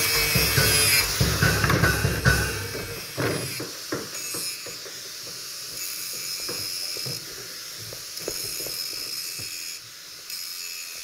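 Angle grinder cutting metal, with a steady high whine. It dies away about three seconds in, leaving a few soft knocks.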